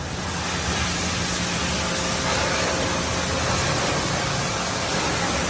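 Pressure washer spraying water: a steady, loud hiss with a low motor hum beneath.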